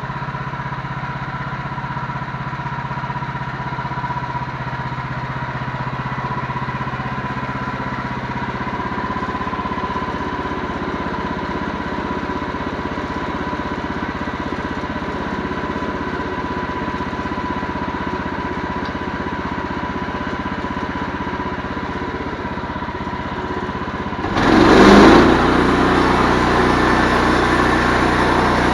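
An engine running steadily with a thin steady whine. About 24 seconds in it surges sharply louder, then settles at a higher, louder steady run.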